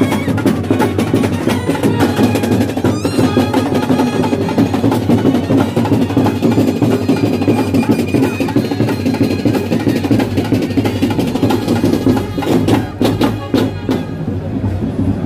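Loud festival music led by rapid, continuous drumming.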